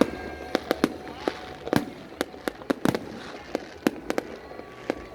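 Fireworks going off: an irregular rapid series of sharp bangs and cracks, several a second, over a steady background hiss.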